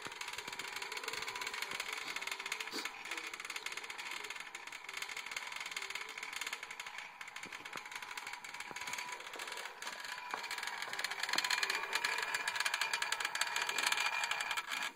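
Battery-operated toy roach's vibration motor buzzing, its legs rattling very fast against a metal floor vent grille. It grows louder in the last few seconds, then cuts off abruptly.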